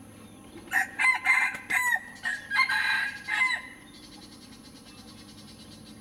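Rooster crowing: one cock-a-doodle-doo of several syllables, about three seconds long, starting just under a second in.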